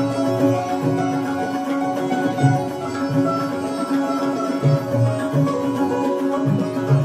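Sitar and tabla playing Hindustani classical music: the sitar's plucked melody rings over a steady drone, while deep tabla bass strokes fall in an uneven rhythm about once or twice a second.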